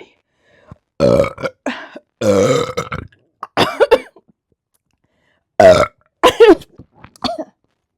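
A woman belching loudly, her belly full of chugged beer: a string of separate burps, one of them long and drawn out, with the loudest pair coming in quick succession past the middle.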